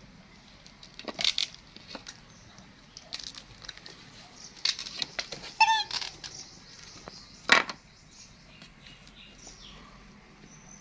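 Scattered taps, clicks and rustles of plastic dessert cups, a spoon and plastic trays being handled at a table. There is a brief high squeak a little past halfway, and one sharper knock about two seconds later, the loudest sound.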